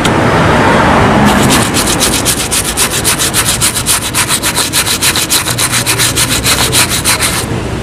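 Small bristle brush scrubbing a suede boot lathered with cleaning gel, in quick, even strokes about six a second. The scrubbing starts a little over a second in and stops shortly before the end.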